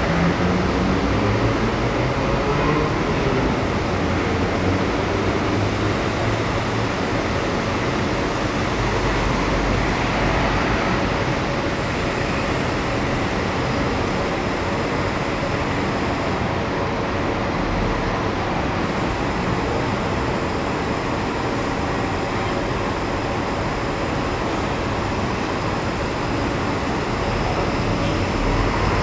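Steady city background noise: road traffic mixed with a São Paulo Metro Line 15 monorail train running along its elevated track, with a low hum in the first few seconds.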